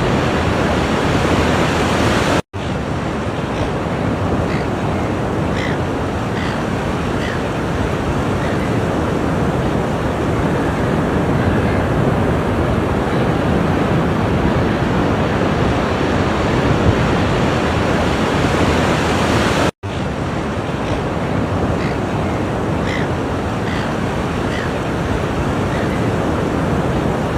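Ocean waves washing on a shore in a steady, continuous surf noise, broken twice by split-second dropouts where the recording cuts.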